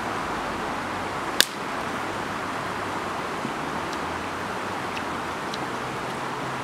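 Steady rushing outdoor background noise, with one sharp click about a second and a half in.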